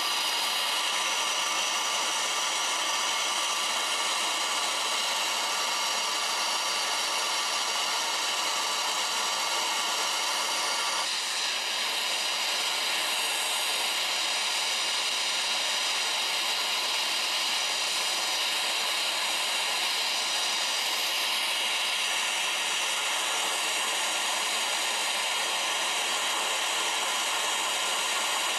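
Gas torch flame burning steadily with a constant hissing rush while it heats recovered silver in a crucible to melt it down. The tone shifts slightly about eleven seconds in.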